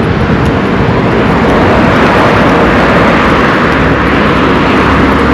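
A motor vehicle passing close by on the road, its engine and tyre noise swelling and then easing off, with a deeper low rumble joining in over the last second and a half.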